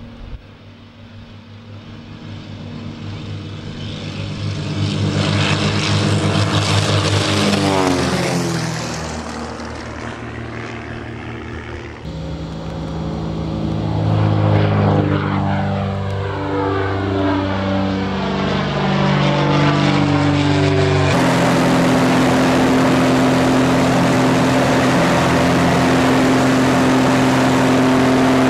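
Piston engines and propellers of several aerobatic biplanes at full power on a formation takeoff, growing louder and sweeping past. Then a single biplane's engine as it climbs and passes. From about three quarters of the way through, the steady drone of the engine heard from inside the cockpit.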